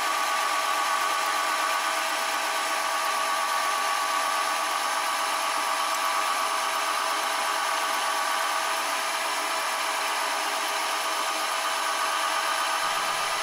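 Milling machine running steadily with a 1.5 mm end mill cutting semicircular slots in an engine reverser block, an even machine whine that holds at one pitch.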